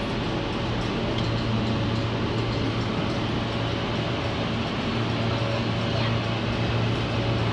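New York City Subway R160B car with Alstom propulsion running through a tunnel, heard from inside the front car: a steady rumble of wheels on rails with a low steady hum.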